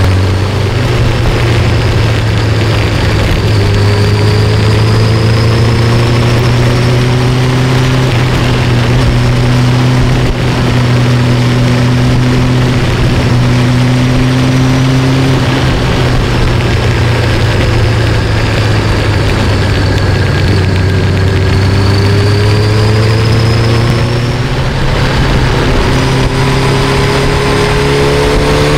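Sport motorcycle engine running under way, heard from the rider's seat with wind rushing past. The engine note steps up just after the start, holds fairly steady, then dips and climbs again in the last few seconds.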